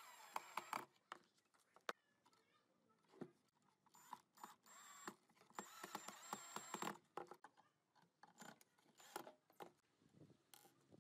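Cordless drill-driver running in several short bursts as it drives screws through small metal hardware into wood: a motor whine with a steady high tone, about a second at the start and again for a second or so around six seconds in. Small clicks and taps of handling screws and the workpiece in between.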